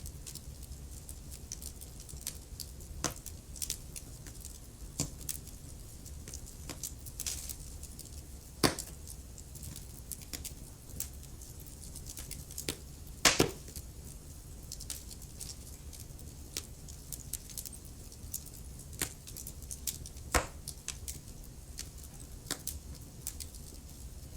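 Wood fire crackling: irregular sharp pops and snaps over a low steady rumble, with a louder pop just before 9 seconds in and the loudest near 13 seconds.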